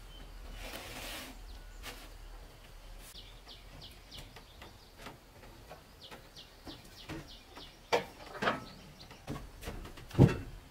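A bird chirping over and over in short, high, falling calls. In the second half come several sharp knocks and thumps, the loudest near the end.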